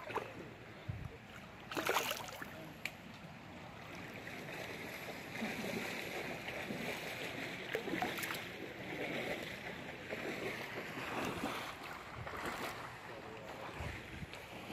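Shallow river water running and splashing, with a few sharper splashes or knocks: a strong one about two seconds in and two more later on.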